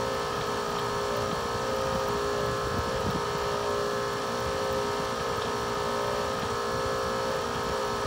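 Carrier central air conditioner's outdoor unit running with a loud, steady mechanical drone and several held tones from the compressor, as though it would come apart. The sound is thought by the uploader to be refrigerant slugging (liquid reaching the compressor) or the motor running backward after a power outage.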